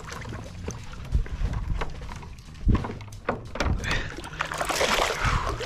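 Sounds on a fishing kayak during the fight with a hooked largemouth bass: a few dull knocks on the hull under a low steady hum, then a splash of water about five seconds in as the fish comes up beside the kayak.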